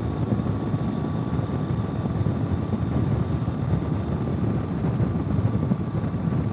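Ural motorcycle on the move at road speed: its flat-twin engine running steadily under a dense, even rush of riding noise.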